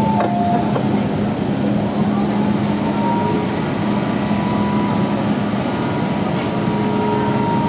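Steady hum and rush of an MTR M-Train's interior while it stands at the platform, with the last notes of the two-tone door-closing chime in the first half-second. A faint, high, steady tone comes in about two or three seconds in.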